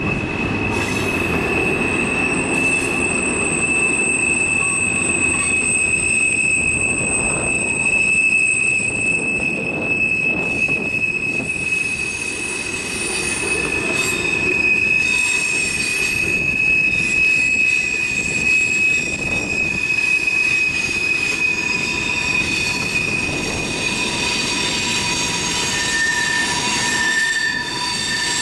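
Freight cars rolling past on a curve, their steel wheels giving a steady high squeal against the rails over the low rumble of the train, with other higher squeals coming and going.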